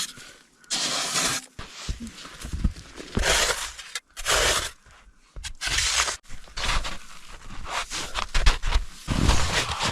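A tool scraping and cutting into packed snow in repeated strokes: several longer scrapes of about half a second to a second, then a run of quicker, shorter ones in the second half.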